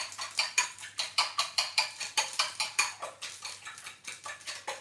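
Eggs being beaten with a metal utensil in a ceramic bowl: quick, even clicks of metal striking the bowl, about five a second.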